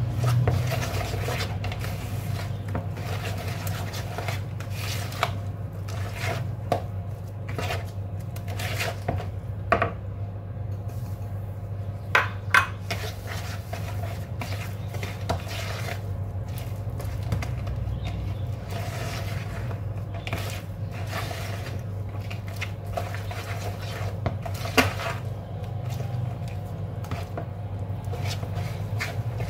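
Wire whisk stirring a thick semolina batter in a plastic mixing bowl, with irregular clicks and taps of the whisk against the bowl, over a steady low hum.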